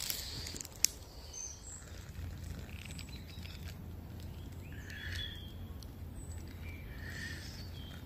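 Faint, scattered calls of wild birds, short chirps here and there over a steady low background rumble, with a single small click about a second in.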